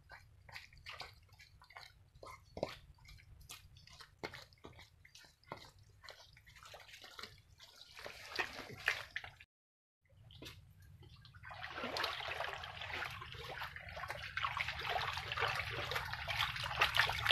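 Hands squelching and groping in thick wet mud, a string of small wet clicks and slaps. After a short break, a steady, louder splashing and sloshing as hands sweep through shallow muddy water.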